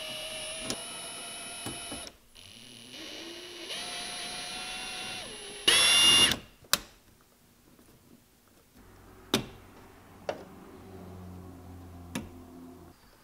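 Cordless drill-driver with a T30 Torx bit backing out screws: two runs of steady motor whine, then a short, loudest burst of fast spinning with a rising pitch about six seconds in. After that come a few sharp clicks.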